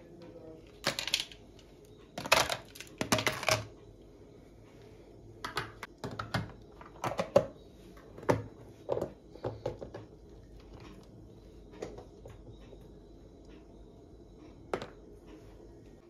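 Irregular clusters of clicks and clinks as ice cubes and paper cups are handled, loudest about two to four seconds in, with scattered single clicks later.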